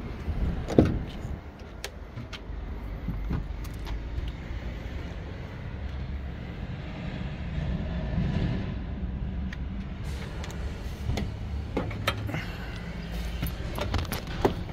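Heavy diesel truck engine idling with a steady low rumble, under sharp knocks and clicks of cab-door handling: a loud knock about a second in, and a cluster near the end as someone climbs into the cab.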